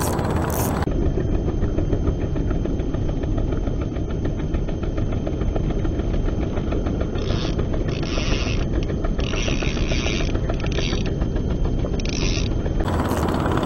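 Steady low rumble of wind and choppy sea on the camera microphone during a lure retrieve, with several short splashy hisses from about seven seconds in.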